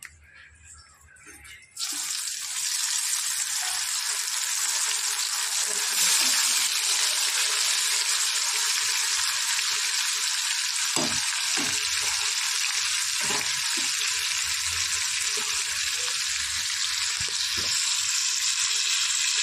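Marinated chicken pieces deep-frying in hot oil in a steel kadai: a loud, steady sizzle that starts abruptly about two seconds in, with a few soft pops or taps in the middle.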